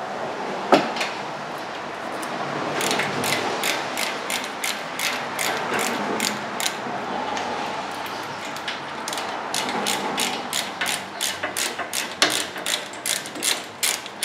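Hand ratchet clicking in runs as it backs out brake caliper mounting bracket bolts, with one sharp snap about a second in. The clicks come quicker and closer together in the last few seconds.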